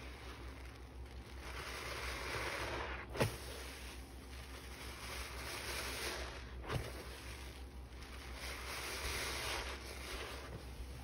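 A hand squeezing and kneading a sponge full of thick soapy lather: a wet, foamy squelching and crackle of bubbles that swells and fades three times. There are two sharp clicks, about three seconds in and again near seven seconds.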